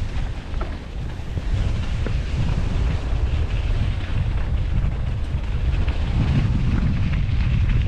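Wind buffeting the microphone: a steady low rumble that grows a little stronger after about a second and a half.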